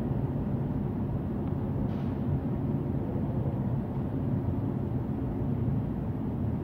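Steady engine drone of a motorized backpack blower spreading Stalosan disinfectant powder as a dust cloud, running evenly without changes in speed.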